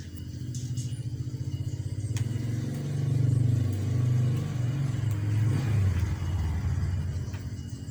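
A motor vehicle's engine running, low and steady, growing louder in the middle and easing off near the end.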